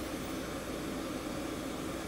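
Glassworking torch flame burning with a steady, even hiss.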